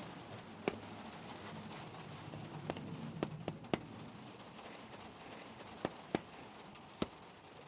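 Irregular sharp metallic clicks and light knocks, about eight of them, from hand tools working on the camshaft bearing caps of a VW 16-valve cylinder head.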